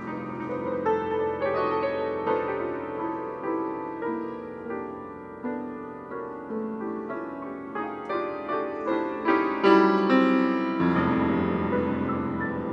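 Solo piano playing: notes and chords struck one after another and left to ring. Low bass notes come in near the end.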